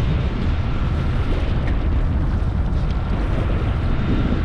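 Steady low rumble of wind buffeting the microphone, mixed with the noise of the boat's outboard engines and the sea, with a faint steady high tone over it.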